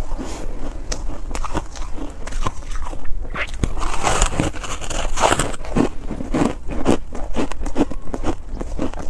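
Close-miked biting and chewing of crumbly coloured foam ice: a dense, irregular run of crunches and crackles.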